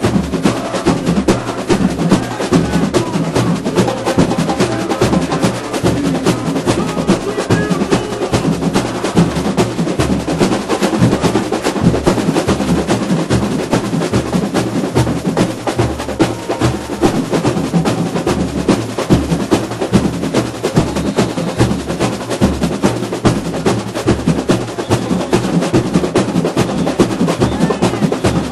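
Samba school bateria playing a batucada: deep surdo bass drums beat a steady pulse under dense, driving snare-drum rolls and other hand percussion.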